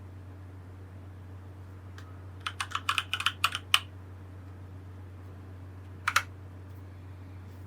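Keys of a Keychron C1 mechanical keyboard being pressed: a single light keystroke, then a quick run of about ten clicks, and a double click near the end. A steady low hum runs underneath.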